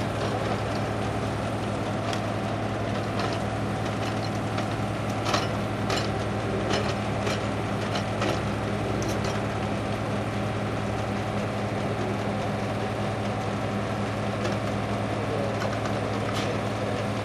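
Forestry forwarder's diesel engine running steadily under the work of its hydraulic log crane. A few sharp knocks between about two and nine seconds in, as the grapple takes hold of logs.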